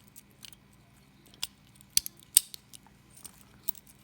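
Light clicks and taps of a cutout practice lock being handled, with two sharper clicks about two seconds in.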